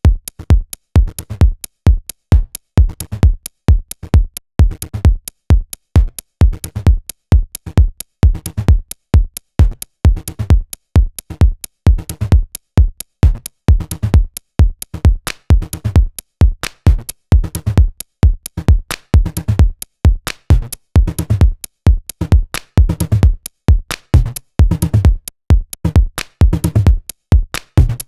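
Electronic dance music with a steady drum-machine kick beat, about two beats a second.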